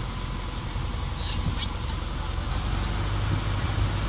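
Motorboat engine running steadily at speed, with the rushing hiss of the boat's wake along the hull.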